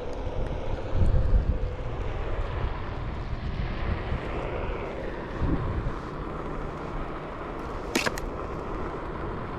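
Onewheel GT's electric hub motor whining steadily under heavy wind rumble on the microphone, with a single sharp click about eight seconds in.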